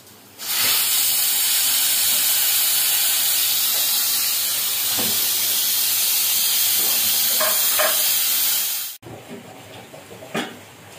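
Stovetop pressure cooker venting steam in a loud, steady hiss while a knife blade props up its weight valve to release the pressure before opening. The hiss cuts off suddenly about nine seconds in, followed by faint clicks of the cooker being handled.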